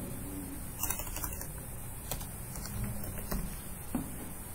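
Computer keyboard being typed on: scattered keystroke clicks, a quick cluster about a second in and single taps after.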